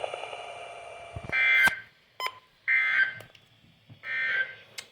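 Three short bursts of Emergency Alert System data tones on a NOAA Weather Radio broadcast, about a second apart, with sharp clicks and silent gaps between them. This is the end-of-message code that closes the flash flood warning.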